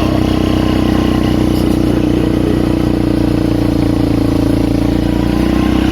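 Polaris Magnum 425 ATV's four-stroke single-cylinder engine running steadily under way on a snowy trail, its note holding even throughout.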